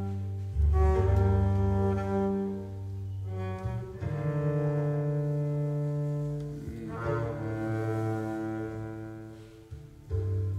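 Double bass played with a bow: a slow line of long, low held notes, each changing to the next about every three seconds.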